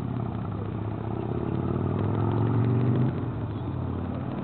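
A motor vehicle's engine running steadily, growing louder until about three seconds in, then dropping off suddenly.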